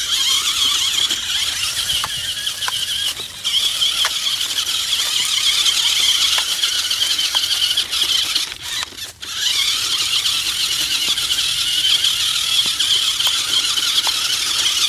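Toy RC truck's small electric motor and gears whining at a steady high pitch as it drives, cutting out briefly twice when the throttle drops.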